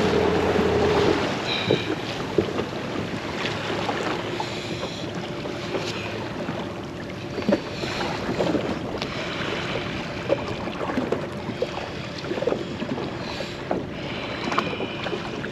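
Jet ski engine running, then cutting away about a second in as the ski is left to drift. After that, choppy water slaps and laps against the hull, with wind on the microphone and scattered short knocks.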